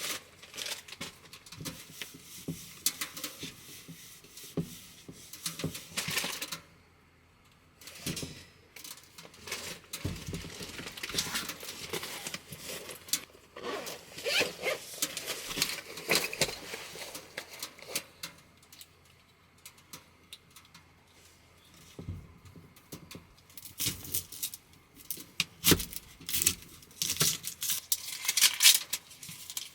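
Irregular rustling and crinkling with light clicks and knocks, as of objects being handled at close range, with a brief pause about seven seconds in.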